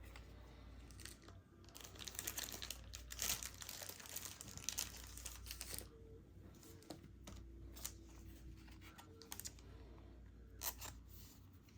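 Faint crinkling and rustling of a thin plastic card sleeve as a trading card is handled and slid into it, with scattered light clicks.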